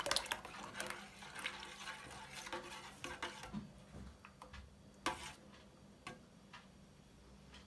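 A metal spoon stirring cream into thick puréed soup in a stainless steel pot: soft wet sloshing with scattered clinks of the spoon against the pot, the sharpest about five seconds in.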